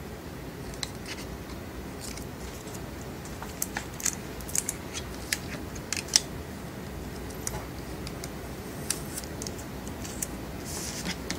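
Scattered sharp clicks and light taps of a smartphone, a plastic applicator card and protective film being handled and set down on a tabletop, with a brief rustle near the end.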